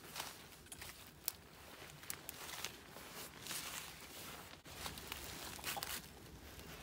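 Irregular rustling and crunching, like footsteps through dry leaf litter, with a single sharp click about a second in.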